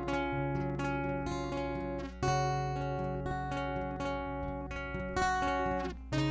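Steel-string acoustic guitar played fingerstyle: plucked chords ring out over a bass note, with new chords struck about two seconds in and again near the end.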